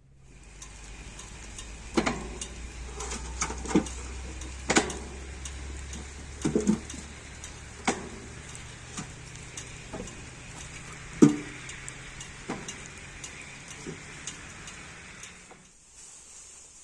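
Cotlet sizzling as they fry in a pan, a steady hiss with irregular clinks and knocks of a utensil against the pan. The loudest knock comes about eleven seconds in, and the sizzle cuts off suddenly near the end.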